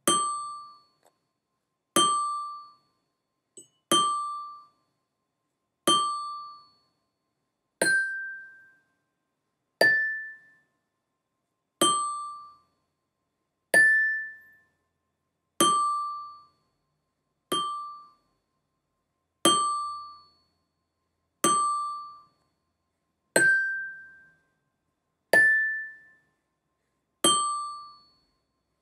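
Glockenspiel bars struck one note at a time with a mallet, a single stroke about every two seconds, each ringing briefly and dying away. Most strokes fall on the same note, with a few on a higher one.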